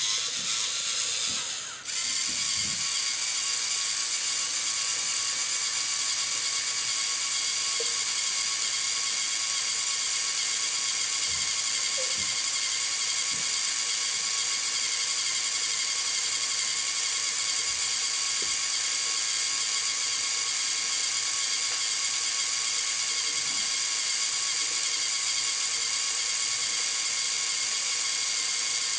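LEGO Mindstorms NXT servo motors running, a steady high-pitched whirring gear whine as the robot drives its lifting mechanism. The whine dips briefly about two seconds in, then runs on evenly.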